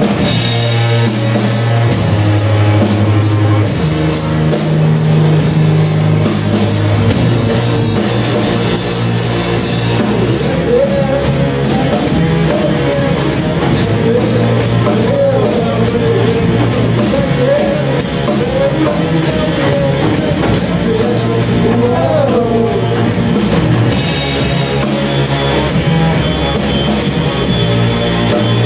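Rock trio playing live and loud: distorted electric guitar, electric bass and a drum kit keeping a steady driving beat.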